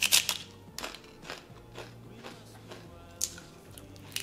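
Tortilla chip loaded with salsa bitten off with a loud crunch, then chewed, with a few more sharp crunches spread through.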